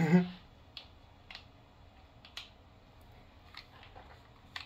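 A handful of faint, scattered light clicks and taps from handling a PepperBall TCP launcher, after a brief bit of voice at the start.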